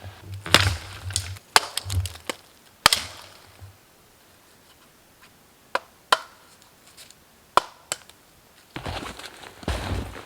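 Sharp knocks and cracks of wood being chopped, about six strikes spaced irregularly a second or more apart. Scuffling movement comes at the start and near the end.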